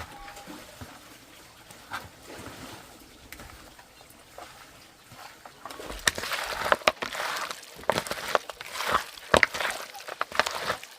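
Water splashing and sloshing, louder from about six seconds in, with several sharp knocks among it.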